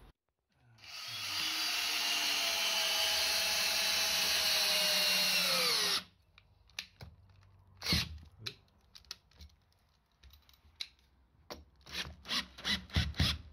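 Makita cordless drill driving a bolt down through rubber isolation pads into a wooden stud-frame plate: the motor runs steadily for about five seconds, its pitch falling as it slows, then stops. Short sharp clicks follow, a quick run of them near the end.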